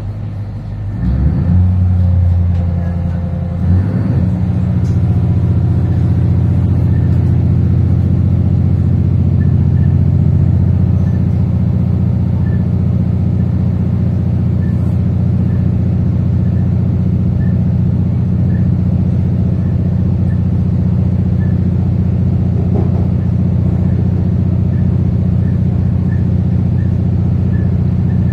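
A 3000 class diesel-electric railcar's engine heard from on board, powering up as the train pulls away from a station. It is a steady low drone that rises sharply about a second in, shifts once near four seconds, then holds steady through the acceleration.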